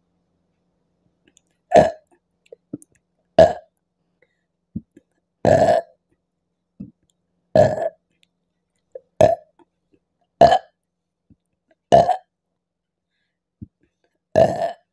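A woman burping loudly eight times, one every one and a half to two seconds, from the gas of carbonated apple drink (Appy Fizz); the third burp is the longest.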